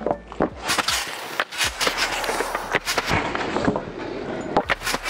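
A blank skateboard deck without grip tape being flipped and landed on a trampoline mat: irregular thumps and clacks of the deck and sneakers hitting the bouncing mat, several close together.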